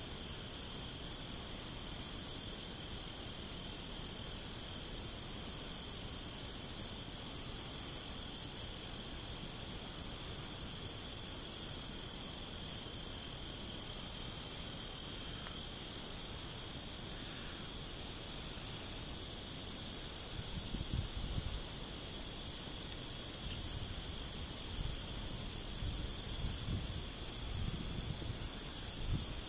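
Field insects singing in a steady high-pitched chorus. In the second half come a few low puffs of breath blown into a smouldering grass tinder bundle to bring it to flame.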